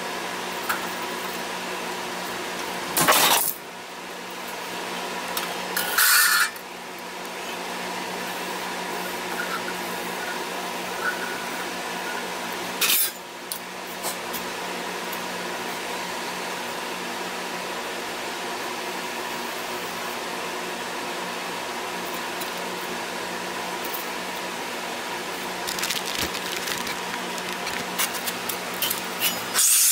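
Sheet-metal repair panel being handled and fitted: three short scraping rasps of metal and some light metallic clicks and clinks near the end, over a steady shop fan hum.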